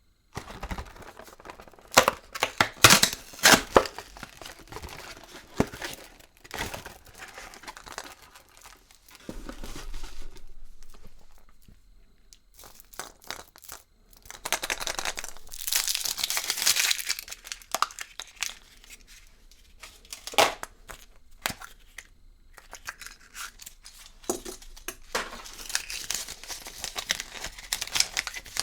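Foil wrapper of a Kinder Surprise egg crinkling and tearing as it is unwrapped by hand, in irregular crackling runs with several louder bursts.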